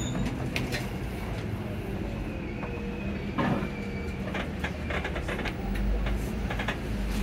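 Inside a bus while it drives: the engine drones steadily under road noise, with scattered clicks and rattles through the middle and later part.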